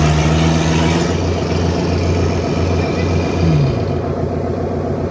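Heavy-equipment engine running, its pitch dropping about three and a half seconds in as it slows down, then running on at a lower speed.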